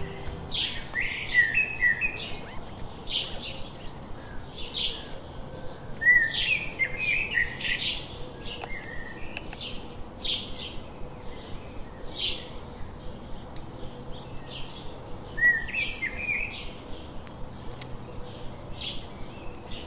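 Small songbirds chirping repeatedly, short high chirps about once a second with a few brief trills in between.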